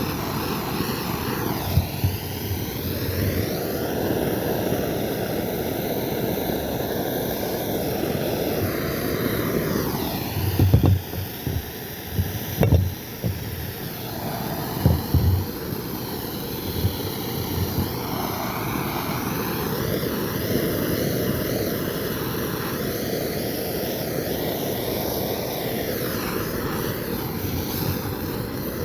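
Blowtorch flame running with a steady hiss, its tone slowly shifting as the flame moves; a few low knocks around the middle.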